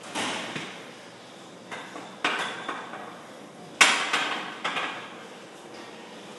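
Iron weight plates and the steel lever arm of a plate-loaded gym machine clanking as it is worked. There is a series of sharp metal clanks that ring briefly, and the loudest comes just under four seconds in.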